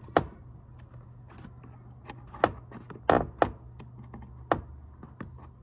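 Hard plastic clicks and knocks from working the door's main wiring connector and its latch loose, about five sharp ones among lighter ticks.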